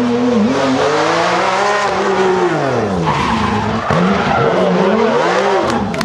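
Porsche 911 rally car's flat-six engine revving hard and dropping back several times as the driver goes on and off the throttle, with the tyres skidding as the car slides through a corner. There is one sharp crack near the end.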